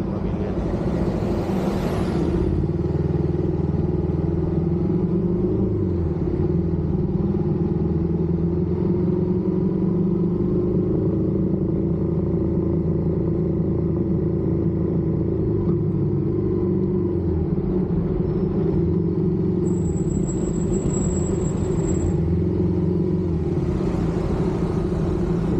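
Suzuki Inazuma motorcycle engine with its stock exhaust, running steadily at a fairly even, low speed. A brief rush of noise comes in at the start and again near the end.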